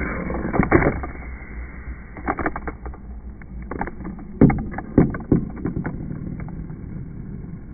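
Small plastic Tony Hawk Box Boarders toy skateboard rolling and clattering on a tabletop, with a run of sharp clacks as it is pushed, hits and lands; the loudest two come about halfway through. A steady low hum underneath.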